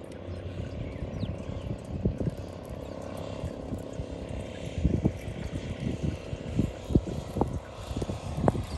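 Wind on the microphone over a small boat on open water, with irregular short knocks and a faint steady hum underneath.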